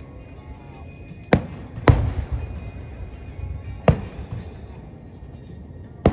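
Fireworks shells bursting overhead: three sharp bangs, about a second in, half a second later and near four seconds in, each followed by a low rumbling echo.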